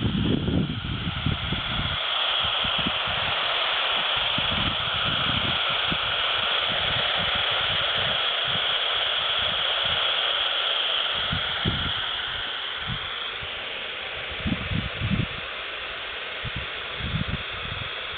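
Steady static hiss from a CB handheld radio's speaker in SSB mode between transmissions: band noise with no voice coming through, with a few faint low thumps.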